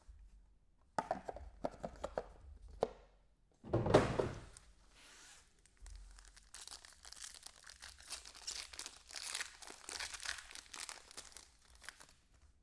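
A foil trading-card pack being torn open and its wrapper crinkled, with scattered ticks at first, a loud tear about four seconds in, then a long stretch of crackling.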